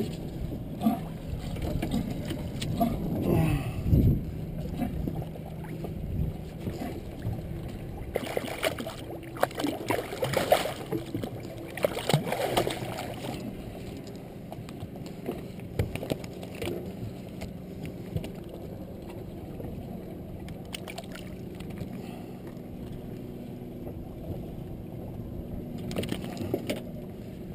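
Steady low hum on a small boat at sea, with wind and water noise. Clusters of sharp knocks and rattles come about eight to thirteen seconds in and again near the end.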